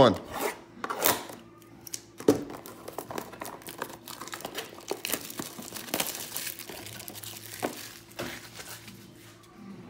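Cellophane shrink wrap on a trading-card hobby box being snipped with scissors, then torn and crinkled as it is peeled off by hand. There are a few sharp clicks near the start and a longer stretch of crackling about halfway through.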